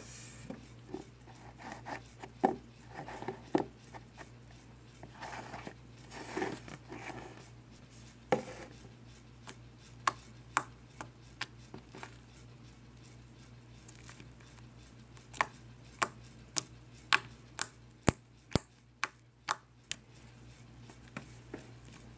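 Slime being handled, squeezed and poked, with soft squishing and sharp clicking pops; a run of pops about two a second comes in the second half.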